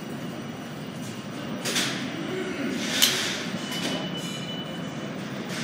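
New York City Subway G train of R68-series cars at an underground platform, with a steady rumble from the train and station. A sharp metallic clank comes about three seconds in, and a brief high whine follows just before four seconds.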